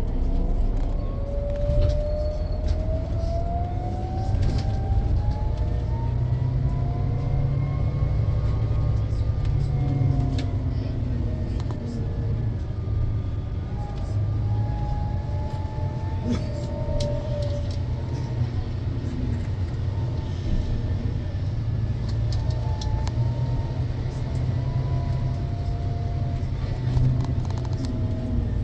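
Coach bus running with a steady low rumble heard inside the passenger cabin as it drives onto a car ferry, with a tone slowly rising and falling in pitch and light rattles.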